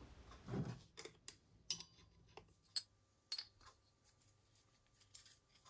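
Faint, scattered small metallic clicks and taps of a Honda XL175 piston and its steel gudgeon pin being handled and fitted, about half a dozen spread over a few seconds, with a soft knock about half a second in.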